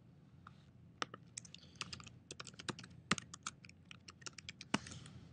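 Typing on a computer keyboard: a quick, irregular run of light key clicks starting about a second in.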